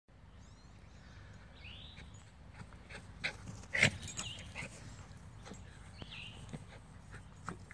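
Small Schipperke dog making short, sharp yips and barks while it plays with a toy. The loudest comes about four seconds in.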